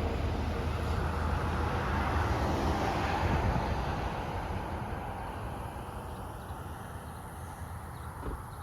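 A road vehicle going by: a noisy rumble that swells slightly and then slowly fades away over the last few seconds.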